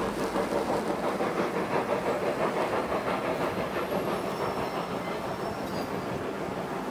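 Steam locomotive running with its passenger train, the exhaust and rolling train making a quick, even pulsing beat.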